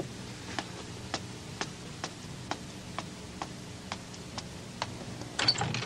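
Evenly spaced sharp ticks, about two a second, over a low steady hum in a quiet room, with a brief louder rustle near the end.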